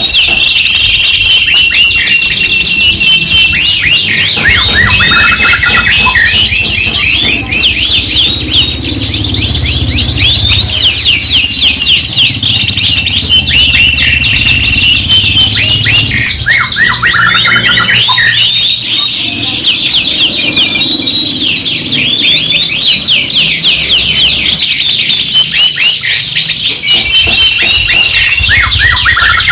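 Several domestic canaries singing together in a continuous chorus of fast rolling trills and held whistled notes.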